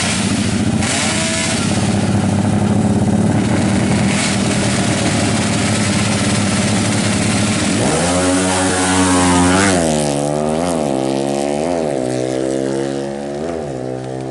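Bored-up Honda Tiger drag bike's single-cylinder four-stroke engine running steadily. About eight seconds in, it revs up and then is blipped up and down about once a second.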